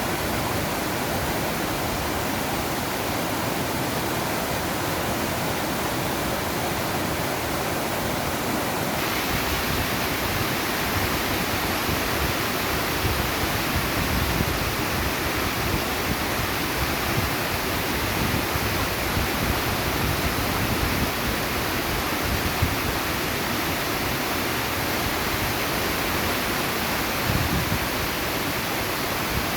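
Mountain stream in spate after days of heavy rain: a steady, loud rushing of fast water over rocks. About nine seconds in, the sound abruptly takes on more hiss in the high end.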